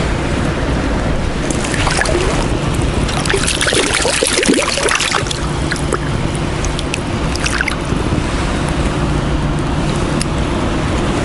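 A hooked trout splashing and thrashing at the surface of shallow water from about two seconds in to about five seconds in, over steady wind noise on the microphone; a few light ticks follow.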